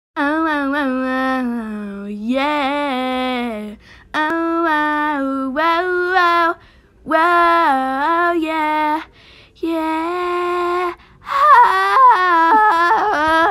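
A female voice singing a short intro jingle in held, steady notes, in about five phrases with brief pauses between them.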